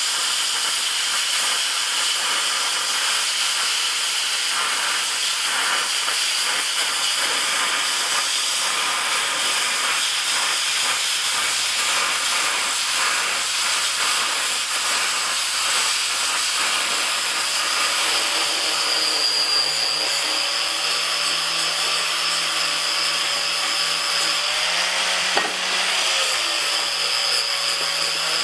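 Handheld plasma cutter hissing steadily as it cuts a circle out of steel plate. About two-thirds of the way in, a steady low hum joins the hiss, with one short click a few seconds before the end.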